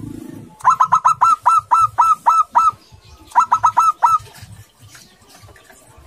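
Zebra dove (perkutut) calling: a rapid run of about ten short, clipped cooing notes, a brief pause, then a shorter run of about five more.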